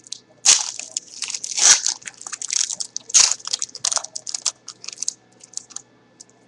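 Shiny foil wrapper of a 2011 Panini Gridiron Gear trading-card pack being pulled open and crumpled by hand: loud, irregular crinkling and crackling for about five seconds.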